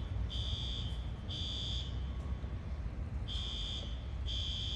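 Electronic alarm beeping: high-pitched beeps about half a second long, about once a second, with one beat skipped partway through. A steady low rumble runs underneath.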